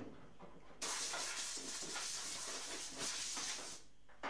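A steady hiss of compressed air from a blow gun, starting abruptly about a second in and lasting about three seconds, as scraped paint debris is blown off the car's floor pan.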